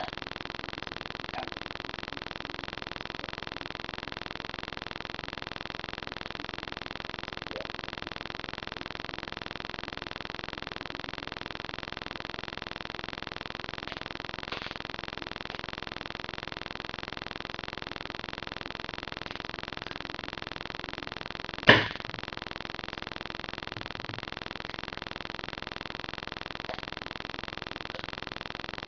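Steady hiss of a webcam microphone's background noise, with a few faint ticks and one sharp, loud knock about three-quarters of the way through.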